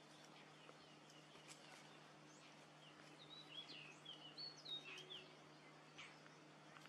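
Faint, quiet outdoor background with scattered short bird chirps, a few clustered about three to five seconds in, over a steady low hum.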